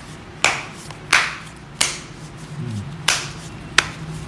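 Deck of playing cards being cut back and forth between the hands in a false shuffle. The packets slap together sharply five times, about two-thirds of a second apart, with one longer pause in the middle.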